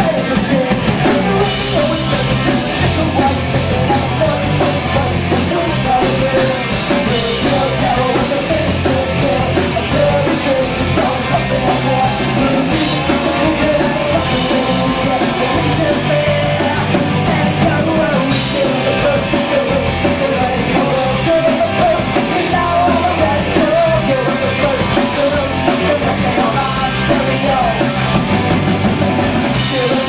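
Live punk rock band playing: electric guitars, bass guitar and drum kit, loud and continuous.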